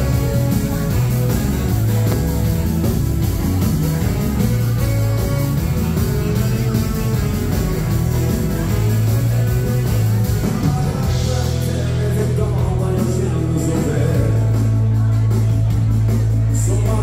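A dance band playing live: electric guitar, accordion, saxophone and drums over a strong steady bass line, with a man singing.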